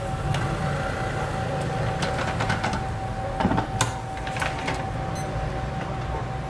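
The lid of a Cuisinart waffle maker is shut down onto fresh batter with a few sharp metal clicks and knocks a little past halfway. Under it runs a steady kitchen hum with a thin steady whine.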